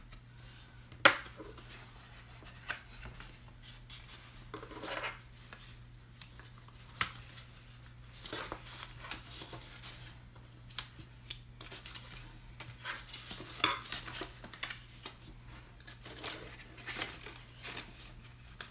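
Black cardstock being folded by hand along scored lines and creased with a plastic bone folder: short rubbing swishes of paper and tool, and scattered light clicks and taps on the tabletop, the sharpest about a second in.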